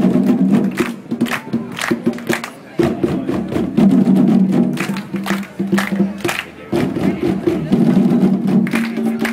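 A children's djembe ensemble hand-drumming together in a steady rhythm. A group of voices chants or calls along in phrases of about four seconds, with short breaks between them.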